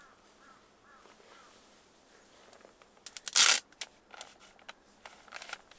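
Plastic packet of wipes being opened: one sharp rip as the flap is pulled back, then a few clicks and a second, softer crinkling rustle as a wipe is drawn out.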